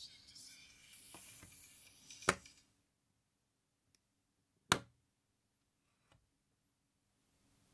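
Samsung Galaxy Buds earbud clicking into its magnetic charging case about two seconds in, and the faint music from the earbud stops. About two seconds later the plastic case lid snaps shut with one sharp click.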